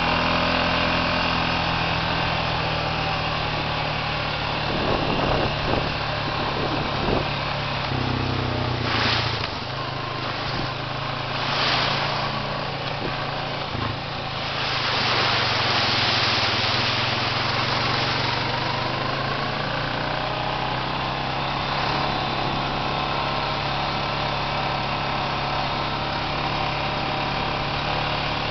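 ATV engine running steadily while riding a rough dirt trail, with a few knocks from bumps a few seconds in and bursts of splashing through muddy puddles around the middle.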